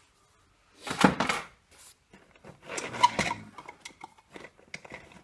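Hand tools knocking and clattering in a tool bag as a hammer is stowed and small plastic drill-bit cases are pulled out: two louder clunks, about a second and three seconds in, then light rattling clicks of the plastic cases.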